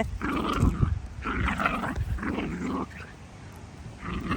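An animal vocalising in three short, noisy bouts over about three seconds, then a brief pause before it starts again near the end.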